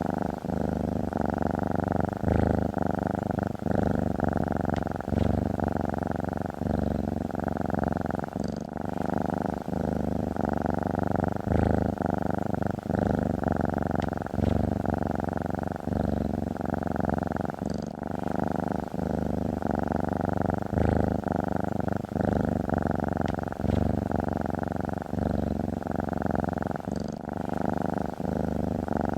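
A domestic cat purring close to the microphone, a steady low throb that swells and eases every couple of seconds with its breathing.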